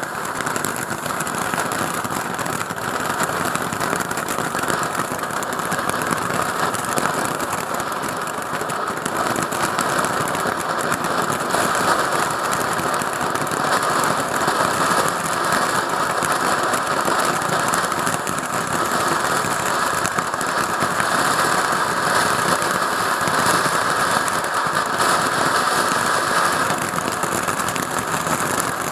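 HoneyBoom 'Super Purple Rain' firework fountain flaring up right at the start, then burning with a steady, loud hiss of spraying sparks that goes on without a break.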